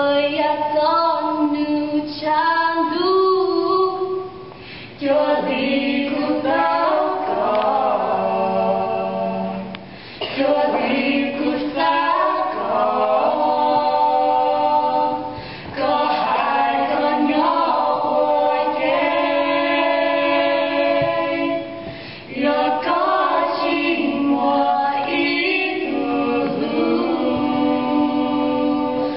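Three women singing a Hmong song together a cappella, several voices at once with no instruments. The sung phrases break off in short pauses about every five or six seconds.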